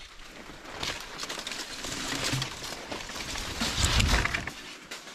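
Palm fronds rustling and crackling as they are pushed aside and handled, with many small clicks and a dull bump about four seconds in.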